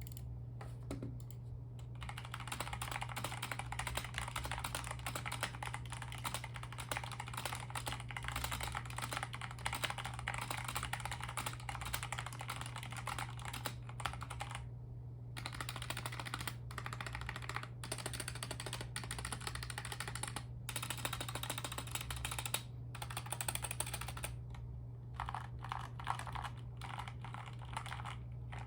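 Typing on a stock, unmodded Readson 61 mechanical keyboard with unlubed Outemu Black linear switches: a fast run of key clacks that starts about two seconds in and pauses briefly twice, over a steady low hum.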